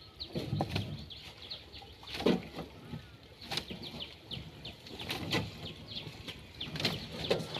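Wet collapsible ring trap net (China duari) being hauled out of the water over a boat's side, giving irregular knocks, rustles and splashes, the loudest about two seconds in and near the end. Many short high bird chirps run underneath.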